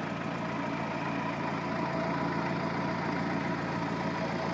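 1952 Willys M38 Jeep's four-cylinder flathead engine idling steadily.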